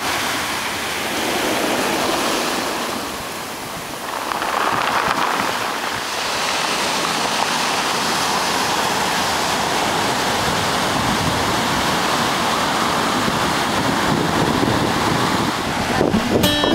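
Ocean surf washing up a pebbly shore: a steady rushing wash that eases off, then swells back up a few seconds in. Music starts right at the end.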